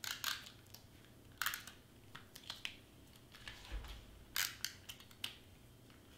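A handheld tape runner laying double-sided adhesive tape onto craft foam, in about six short strokes.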